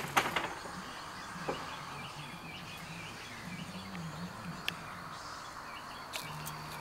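Outdoor yard ambience: faint bird chirps over a low, wavering hum, with a few sharp clicks, the loudest right at the start.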